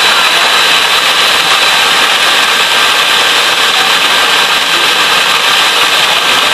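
Electric mixer running steadily, whipping eggs to a foam for sponge cake, with a constant high whine over a dense hiss.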